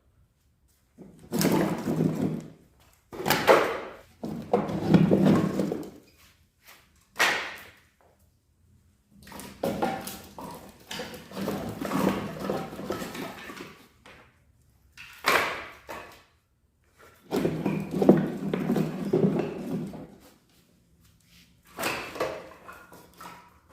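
Repeated axe strikes splitting firewood: sharp chops into logs, each followed by the wood cracking apart and split pieces knocking about. Short silent gaps fall between the strikes.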